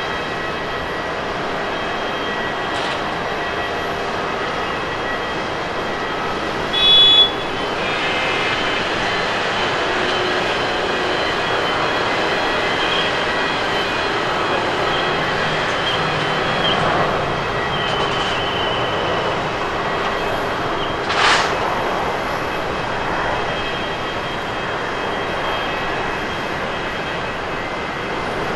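Jet engines of a Japan Airlines Boeing 767-300ER landing, a steady even roar as it touches down and rolls out along the runway. Two brief sharper sounds stand out, about seven and twenty-one seconds in.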